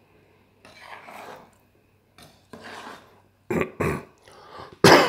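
A person coughing and clearing their throat in several short bursts, the loudest near the end.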